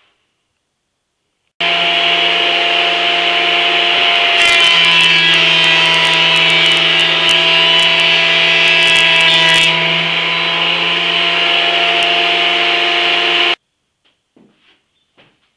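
Benchtop thickness planer running, its motor a steady hum with several fixed tones. For about five seconds in the middle it cuts thin strips of 2x3 stud, adding a dense crackling chatter as the knives take the wood. It starts and cuts off abruptly.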